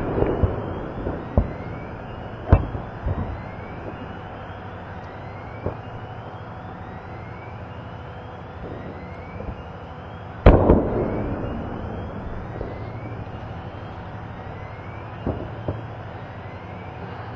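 Stored munitions detonating: scattered bangs and pops, each with a rumbling tail, the loudest blast about ten seconds in and a pair of smaller ones near the end.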